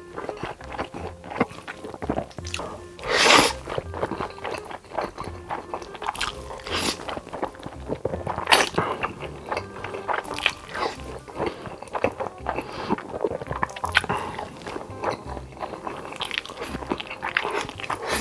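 Close-miked eating sounds: wet chewing and biting of a big mouthful of sauced chicken, and slurping of spicy noodles, with many short wet clicks and a few louder noisy slurps. Background music plays underneath.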